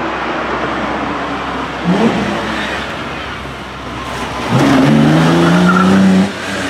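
Lancia Stratos Stradale's Ferrari Dino V6 engine driven hard: a short blip of revs about two seconds in, then a loud engine note climbing steadily for nearly two seconds that cuts off abruptly as the throttle is released.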